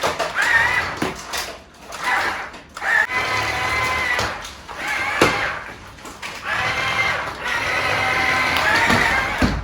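Wall-climbing toy car's motor whirring in several stretches of a second or two, with short drops in between.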